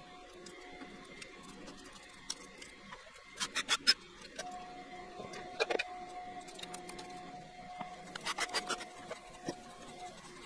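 Hand tools working on an engine during teardown: three short bursts of rapid metallic clicking, about three, six and eight seconds in, over a steady faint hum.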